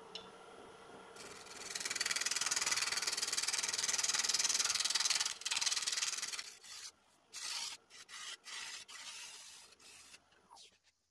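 A 1-inch scraper held on its edge shear-scraping the surface of a sycamore vase spinning on a wood lathe: a steady hiss for about four seconds, then a run of shorter strokes broken by gaps as the tool is lifted on and off the wood.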